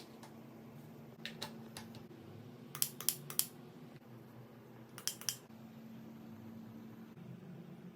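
Sharp clicks in small groups over a steady low hum: a few faint ones early, three loud quick clicks about three seconds in, and two more about five seconds in.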